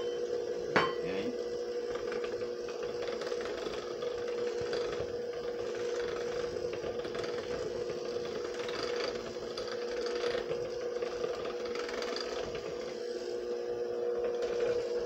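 KitchenAid electric hand mixer running steadily, its beaters working through thick cream cheese and butter frosting as powdered sugar is mixed in, with a steady motor whine. A single sharp tap sounds about a second in.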